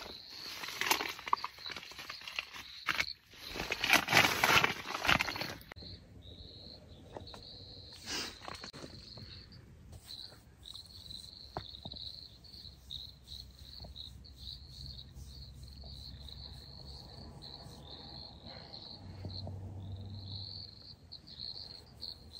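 Loud rustling and scuffing for the first several seconds, then, after an abrupt change, crickets chirping steadily at a high pitch, with a faint low hum under them near the end.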